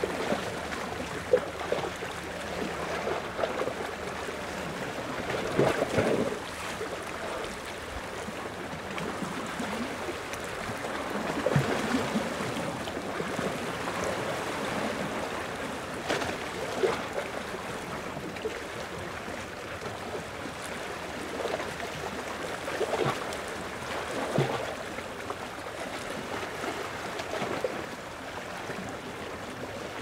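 Small ocean waves lapping and splashing at the shore: a steady wash of water with brief louder splashes every few seconds.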